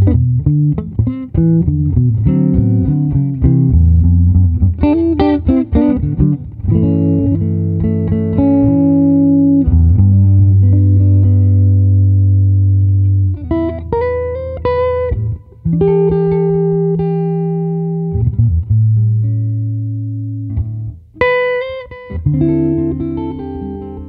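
Solo archtop guitar being played: quick runs of single notes for the first several seconds, then slower ringing chords over low bass notes, broken by short higher melodic phrases.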